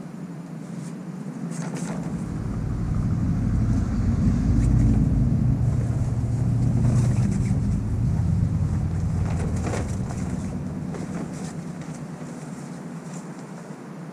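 Low engine rumble of a passing vehicle, swelling over a few seconds, loudest around the middle, then fading away, with a few faint clicks over it.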